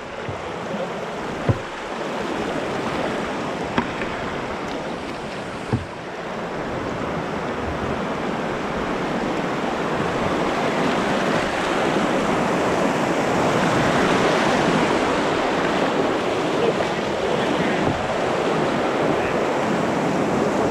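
Rushing white water of a river rapid around an open canoe, growing louder from about six seconds in as the canoe enters the rapid. There are three sharp knocks in the first six seconds.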